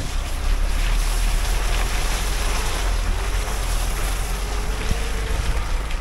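Lada Niva VAZ-21213 driven hard through snow: the engine revs under load while the wheels spin and throw up snow, under heavy wind rumble on the microphone. The engine note climbs about halfway through.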